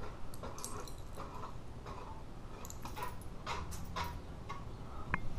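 Ceiling fan running on high with a low steady hum and irregular light ticks, roughly two a second, as the wobbling fan's blades catch on another part of it; the owner suspects a misaligned blade.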